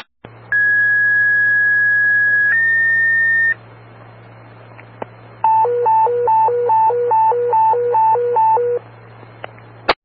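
Fire dispatch paging tones over a scanner: a two-tone sequential page, one steady tone for about two seconds stepping up to a slightly higher tone for about a second. Then, after a short gap, a hi-lo alert tone alternating between a high and a low pitch about three times a second for a few seconds. These tones alert a fire company's pagers ahead of a voice dispatch.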